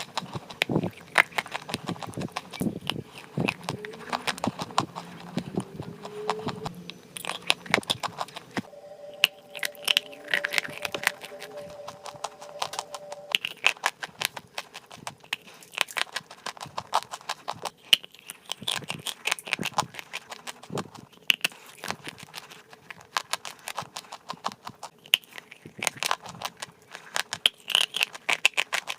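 Dry chalk clay crunching and crumbling close to the microphone: a dense, irregular run of crisp cracks and crackles, several a second.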